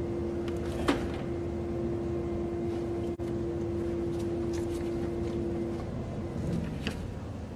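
Occasional sharp clicks of hands handling parts in a car's engine bay during a spark plug and plug wire change, one about a second in and another near the end. A steady background hum under it stops near the end.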